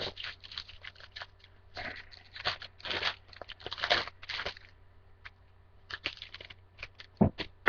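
Foil trading-card pack wrapper being torn open and crinkled in irregular bursts for the first few seconds, then lighter rustling and a knock near the end as the cards are handled.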